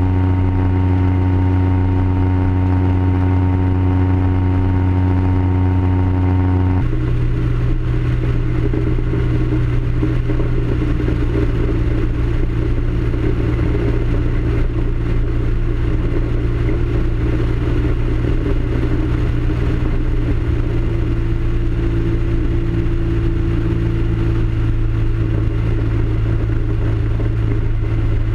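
Ultralight aircraft's engine and propeller running steadily in flight, heard over wind noise. The engine note changes abruptly about seven seconds in and then holds steady.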